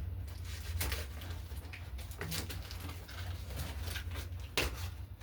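A few scattered light clicks and knocks over a low steady hum.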